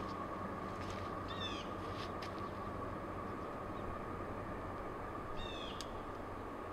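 A bird calling twice, about four seconds apart, each call a quick run of descending notes. Beneath it runs the steady low rumble of a distant approaching freight locomotive.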